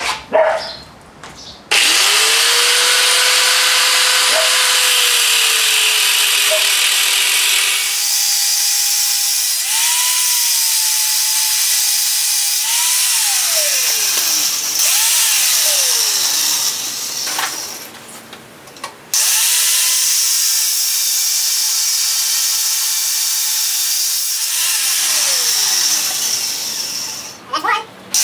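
Electric angle grinder with a cutoff disc cutting through steel motor mounts welded to a thin-walled bicycle frame, a loud grinding hiss over the motor's whine. The whine's pitch sags and recovers as the disc loads up in the metal. The grinder starts about two seconds in and runs in two long cuts with a short stop between them, about two-thirds of the way through.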